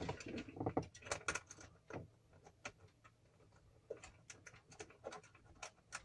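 Irregular light clicks and taps as a small plastic heater controller and its wiring are handled and fitted back in place.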